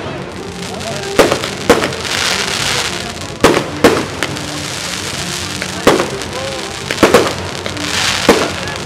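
Aerial fireworks shells bursting: about eight sharp bangs at irregular intervals, some in quick pairs, with a rushing hiss between some of them.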